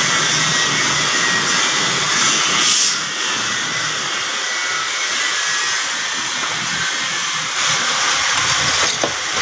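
Steady hiss of moving air, with a stronger whoosh a little under three seconds in and a short click near the end.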